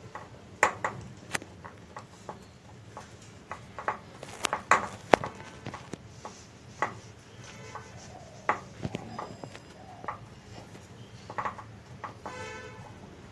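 Scattered light taps and clicks of hands pressing a rolled dough sheet into the cavities of a momo mold, with a few louder knocks about four to five seconds in and a brief pitched squeak near the end.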